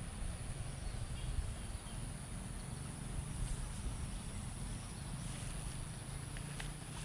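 Outdoor rural ambience: a steady high-pitched insect drone over a low rumble, with a few faint ticks near the end.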